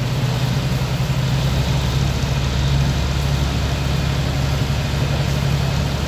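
A boat's engine running steadily under way, a deep, even drone heard from the lower deck, over the hiss of water and wind.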